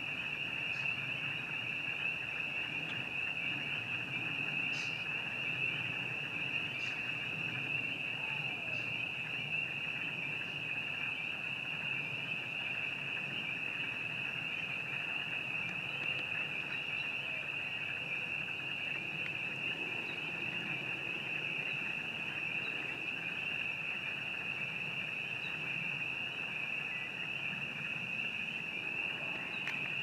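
A dense chorus of frogs calling, heard as a steady, high-pitched trilling, with a few brief higher chirps over it in the first ten seconds.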